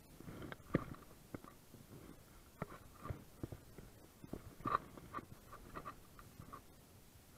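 Spinning reel and rod handled close to the microphone: irregular light clicks and scratchy rubbing of hands on the reel and line, coming in scattered bunches.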